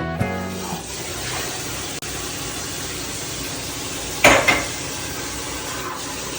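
Steady kitchen hiss, with a single sharp clink of dishware about four seconds in that rings briefly.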